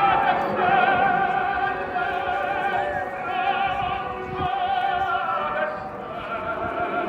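Operatic singing: long held notes with a wide, wavering vibrato, over a musical backing.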